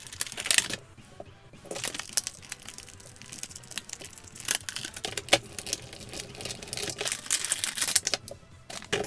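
Clear plastic blister packaging and wrapping crinkling and crackling in irregular bursts as it is handled and pulled apart by hand.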